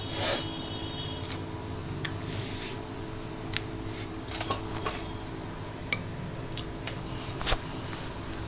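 Wooden rolling pin rolling out folded wheat parotta dough on a stone countertop, with hands pressing the dough: soft rubbing with scattered light knocks. A steady hum runs underneath.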